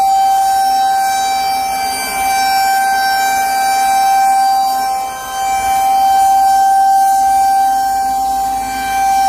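Federal Signal 2001-SRNB outdoor warning siren sounding a steady alert tone at one held pitch. Its loudness swells and fades a few times as the siren head rotates.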